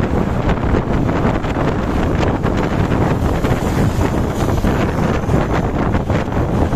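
Steady rumble of a moving road vehicle, with strong wind buffeting the microphone.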